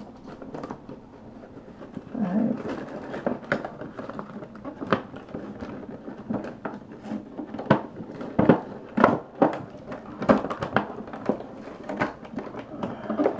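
Cardboard box and plastic packaging of an action figure rustling and crackling, with many irregular sharp clicks and snaps as the figure is worked free of its tray.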